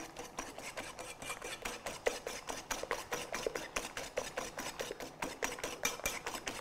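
Wire whisk beating eggs and sugar by hand in a ceramic mixing bowl: rapid, even strokes, several a second, the wires clicking against the side of the bowl.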